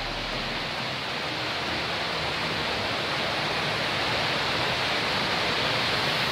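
Steady rushing noise of a waterfall, a cascade of the Iguazú Falls pouring into its pool, growing slightly louder.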